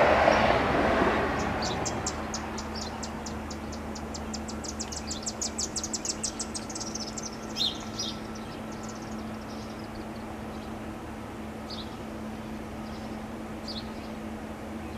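Federal Signal STL-10 siren's rotor in the last stage of its very long winddown, a low steady hum. A passing vehicle swells and fades in the first two seconds, and a bird gives a fast high trill that speeds up, followed by a few short chirps.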